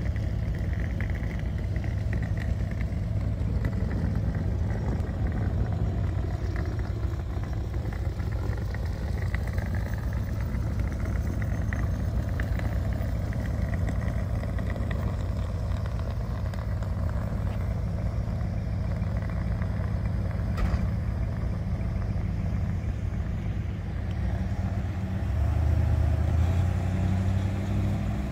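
Steady low rumble of a vehicle engine running at low speed. About 25 seconds in, a louder, pitched engine note swells for a few seconds.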